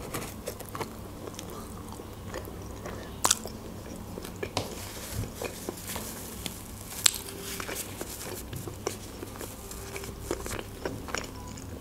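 Close-miked biting and chewing of a shawarma in lavash flatbread: irregular short wet mouth clicks and smacks, a few of them louder about 3 and 7 seconds in.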